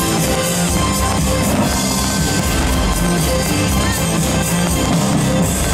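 Loud rock-style show music with held notes and a beat, playing as the soundtrack of a fireworks display.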